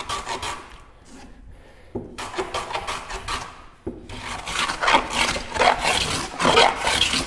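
Metal rabbet plane (a No. 10½ carriage maker's rabbet plane) taking repeated short strokes along a rabbet in a wooden board, shaving up to the shoulder. The strokes go quieter for about a second near the start, then resume and grow louder in the second half.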